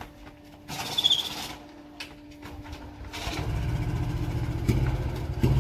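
Motorcycle being push-started: its engine catches about three seconds in and keeps running with an even low beat.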